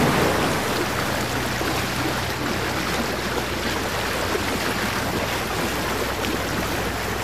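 Steady rush of water, with a low steady hum underneath.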